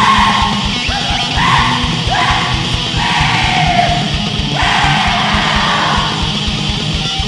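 Black metal song: harsh, howled vocals with rising wails over fast, even drumming and distorted guitars.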